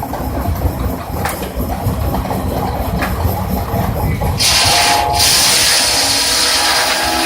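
Steam-powered, belt-driven sawmill running with a low rumble and occasional knocks. About four seconds in, a loud, steady high hiss starts with a faint whine in it.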